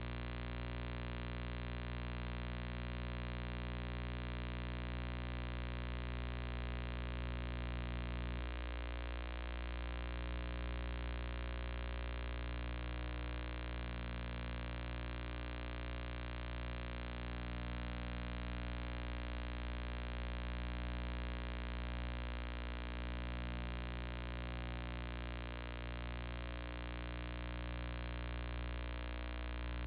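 Steady electrical hum with many evenly spaced overtones, holding unchanged throughout.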